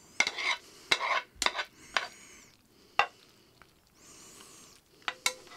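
Metal tongs clicking and scraping against a nonstick frying pan as stir-fried noodles are lifted out onto a plate: a string of irregular sharp clicks with two longer scrapes, the hot pan sizzling faintly.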